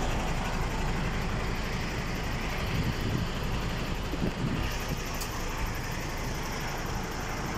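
MAN TGS 21.400 truck's diesel engine idling: a steady low rumble at an even level.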